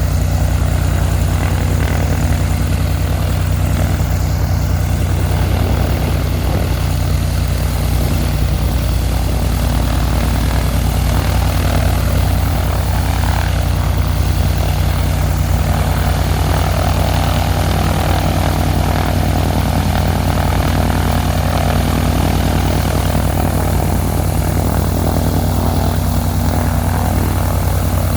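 Cessna 182's piston engine and propeller running steadily on the ground during an engine run-up, with a deep, even drone. It is the engine's first run after a new exhaust system and a new cylinder were fitted.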